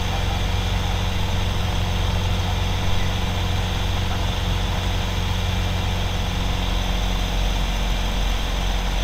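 Piston engine and propeller of a Moragón M-1 light aircraft, heard from inside the cockpit: a steady, even drone during the climb after takeoff.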